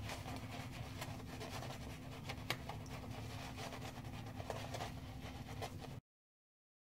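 Synthetic-knot shaving brush working lather over a stubbled face: soft, irregular crackly rubbing over a steady low hum, cut off to silence near the end.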